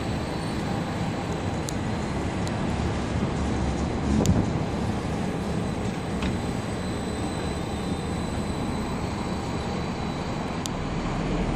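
CAF Urbos 3 articulated tram running slowly past on a curved street track, a steady rumble of steel wheels on rail, with a few short clicks.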